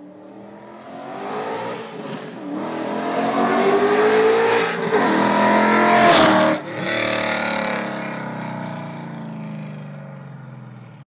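Open-header, open individual-throttle-body V8 in a BMW E38 7 Series accelerating hard past, revving up in rising runs with brief dips between them. It is loudest as it passes about six seconds in, then drops in pitch and fades as it pulls away.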